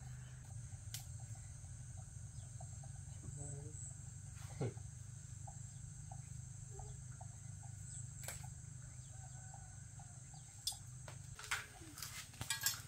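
Quiet ambience: insects chirping steadily at a high pitch over a low steady hum, with a few soft clicks and knocks near the end.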